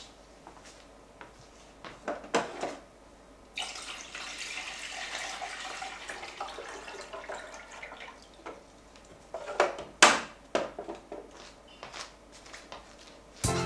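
Water running from a countertop filter dispenser's tap into a jug as an even hiss for about four seconds, followed by several sharp clicks and knocks, the loudest about ten seconds in.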